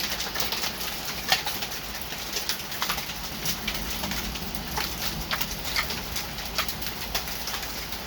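Hailstorm still falling: irregular sharp clicks and knocks of hailstones striking, over a steady hiss of rain and hail, with one louder knock a little over a second in.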